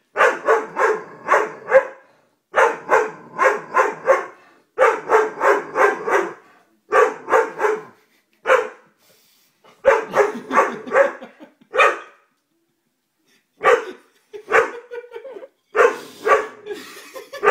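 Doberman barking in quick runs of four to six barks, about four a second, with short pauses between runs. The barks come sparser toward the end.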